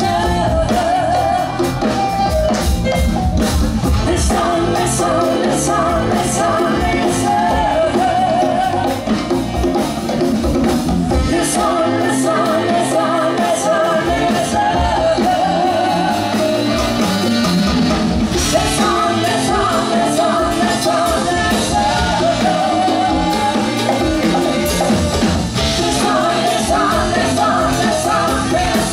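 Live band playing a funk song, with two women singing over electric guitar, bass guitar and drum kit.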